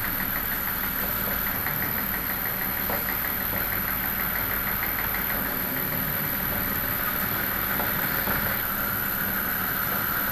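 Milling machine spindle running at about 380 RPM, a steady mechanical drone with a fast, even ticking through the first half.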